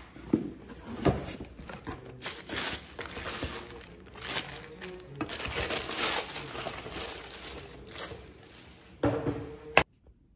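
Cardboard shoe box being opened by hand and the tissue paper inside rustled and crinkled, with a few knocks of the box early on. The sound stops suddenly near the end.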